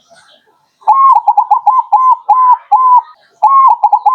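Crossbred zebra dove (perkutut krosing) singing its staccato cooing song, starting about a second in. A longer opening coo is followed by a quick run of short notes and then slower, evenly spaced coos. After a brief pause a second phrase begins in the same way near the end.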